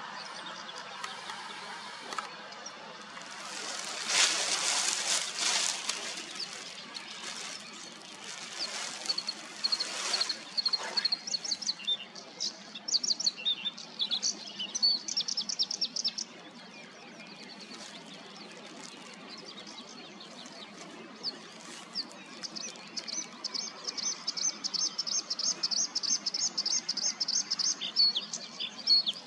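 Bluethroat singing: phrases of high, quick notes and trills, ending in a long, fast run of repeated notes. A loud hissing burst comes about four seconds in.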